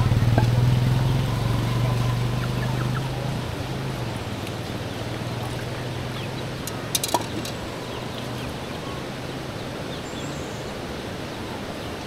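A motor vehicle's engine hum that fades away over the first few seconds, then a couple of sharp metallic clinks of pots and bowls being handled about seven seconds in, with chickens faintly clucking in the background.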